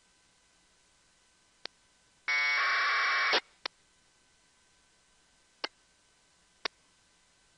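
An APRS data packet received on 144.390 MHz narrowband FM through an RTL-SDR and SDR#: about a second of harsh two-tone 1200-baud AFSK buzz that cuts off sharply as the squelch closes. Four short sharp clicks are spread around it.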